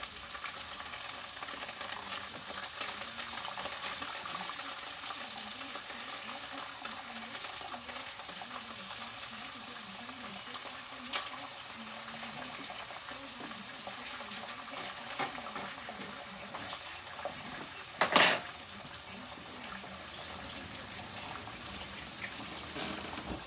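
Thin slices of beef frying in hot oil in a pan: a steady sizzle with scattered small pops and spits of oil. One loud, sharp knock comes about three quarters of the way through.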